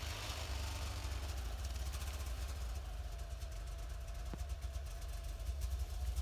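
Snowmobile engine idling steadily, a low rumble with a faint whine above it.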